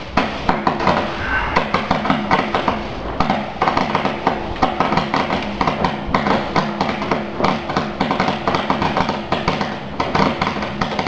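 Ground fireworks going off in quick succession, sharp pops and crackles coming close together without a break, with music playing underneath.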